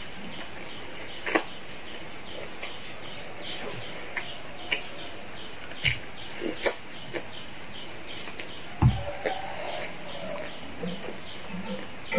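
Close-up eating sounds of French fries being bitten and chewed, with sharp mouth clicks and smacks and one low thump about three-quarters of the way through. Behind it, a steady high chirping repeats about three times a second.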